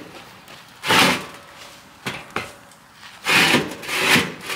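Wood scraping and rubbing against metal in a few short bursts, with one sharp click, as a fire is put into a traction engine's firebox.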